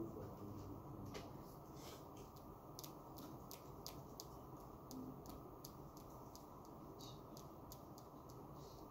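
Quiet classroom room tone with faint, scattered ticks and scratches of students writing on paper, over a steady low background hum.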